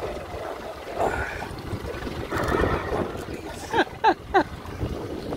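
Wind and sea noise on an open boat, with three short cries about four seconds in, each sliding quickly down in pitch.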